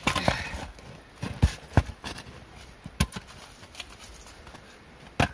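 Small camp hatchet splitting a pine round on a chopping block: a sharp crack as the blade strikes at the start, then several lighter wooden knocks, with a louder knock near the end.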